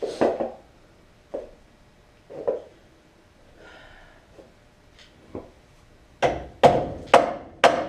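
Mini sledgehammer striking the steel spindle of a 1970 Chevy Nova front end to shock the upper ball joint loose, each hit with a short metallic ring: a few scattered blows, then four hard ones about two a second near the end. The ball joint is stuck and does not break free.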